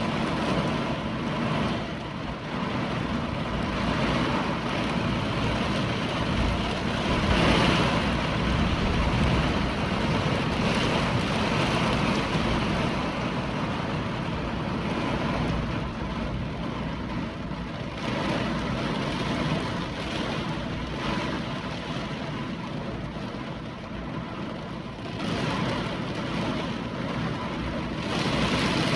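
Hurricane wind and rain: a loud, continuous rush that swells and eases in gusts.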